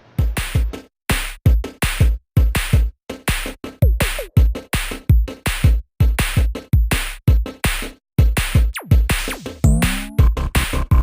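Background electronic music with a drum-machine beat: a regular pattern of deep kick hits and high ticks that breaks off briefly a few times.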